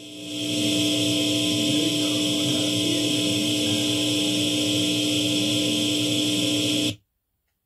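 Steady electric hum and buzz from an electric guitar rig, a drone of several held tones with hiss on top. It swells in during the first second, holds level, and cuts off suddenly near the end.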